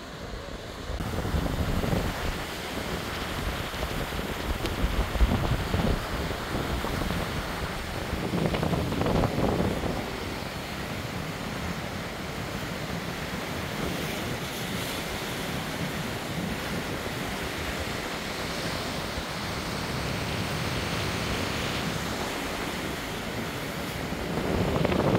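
Sea surf breaking and washing over rocks, with wind buffeting the microphone in low rumbling gusts. The surf swells louder about nine seconds in and again near the end.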